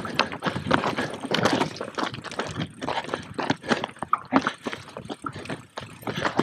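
Enduro mountain bike riding downhill over rough ground: a dense, irregular clatter of knocks and rattles.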